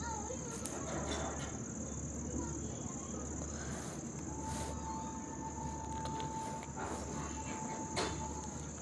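Insects trilling steadily at a high pitch, with a faint held lower tone for about two seconds midway through.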